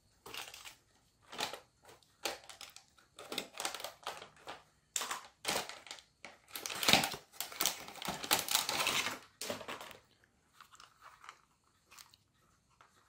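Plastic and cardboard toy-car packaging crinkling and rustling in irregular bursts as the car is unpacked, busiest about six to nine seconds in, then only a few faint handling sounds.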